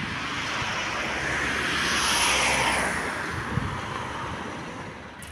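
An articulated city bus driving off: a rushing engine and road noise that swells to a peak about two seconds in, then fades as the bus moves away.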